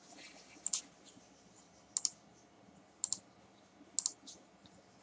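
Faint computer mouse button clicks, several in quick pairs like double-clicks, about once a second.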